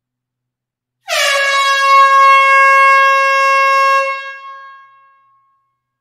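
Air horn sounding one long steady blast in an enclosed hall. It starts about a second in, holds for about three seconds, then dies away over the next second or so.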